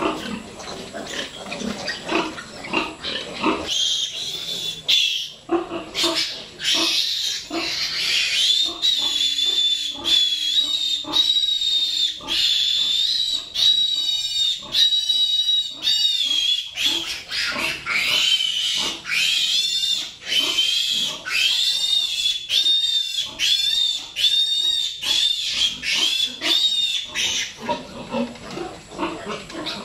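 A piglet squealing while it is held and handled: shrill, high-pitched squeals, repeated rapidly from about four seconds in until near the end.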